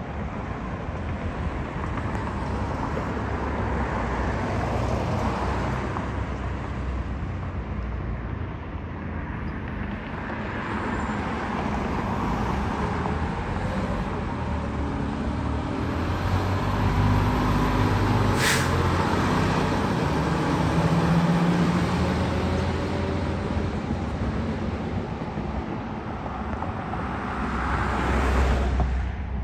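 A 2022 Pierce Enforcer Ascendant aerial ladder truck's engine running as the truck pulls out and drives off along the road, with no siren. The engine noise is loudest around two thirds of the way through, with one brief sharp noise about halfway through.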